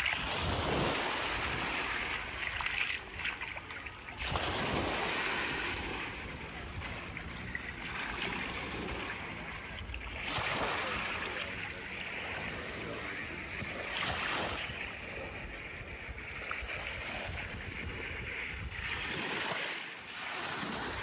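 Small waves washing onto a sandy beach, the surf noise swelling and falling back every few seconds, with some wind buffeting the microphone.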